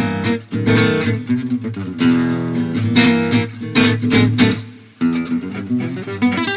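Background music: guitar chords strummed in a quick rhythm.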